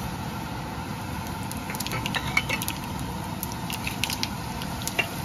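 Mustard and cumin seeds sizzling in hot oil in a wok, tempering the spices, with a steady hiss and scattered small pops and crackles from about two seconds in.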